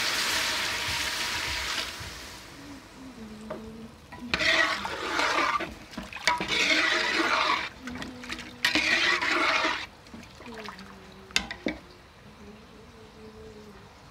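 Water poured from a jug into a steel pot of fried chicken masala: one pour fading out about two seconds in, then three more pours of about a second each, with a few light clinks near the end.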